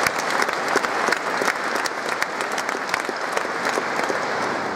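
A large audience applauding: dense, steady clapping that echoes in a cathedral and dies away near the end.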